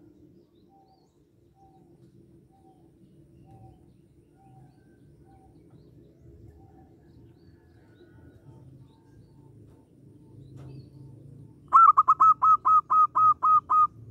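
Bird calls: a faint series of short notes about once a second, then, near the end, a loud, rapid run of about ten chirping notes.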